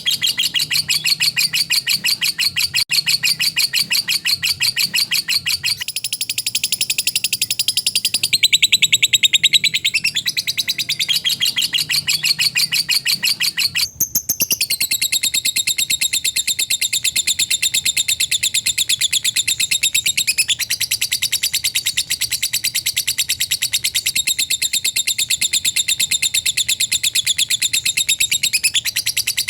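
Lovebird "ngekek" song: a long, unbroken chatter of very fast, high repeated notes, with a brief break about fourteen seconds in.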